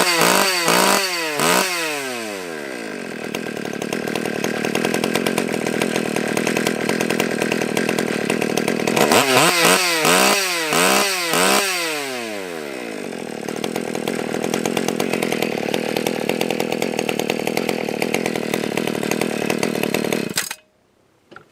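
Stihl 020 AV chainsaw's small two-stroke engine idling, blipped to high revs a few times in quick succession at the start and again about halfway through, then switched off suddenly near the end. It is running on richened carburettor settings, low and high mixture screws about a turn and a half out, and the owner finds it seems to be working all right. The clutch is not yet fitted.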